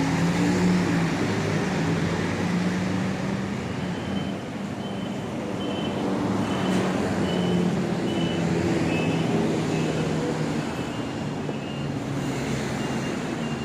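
City street traffic with a vehicle engine running steadily. From about four seconds in, a high beep repeats at an even pace.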